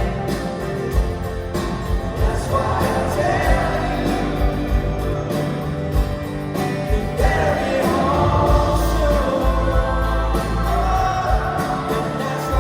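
A rock band playing live with a lead singer over drums and bass.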